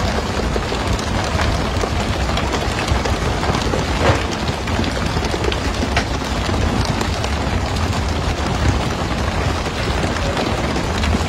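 Fishing boat's engine running steadily under a wash of sea spray and rushing water, with the odd sharp slap of tuna landing on the deck.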